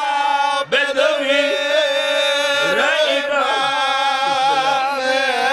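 Men's voices chanting a sung Shia lament (masaib) in chorus. The zakir's recitation is joined by the men around him, and they hold long, drawn-out notes almost without a break.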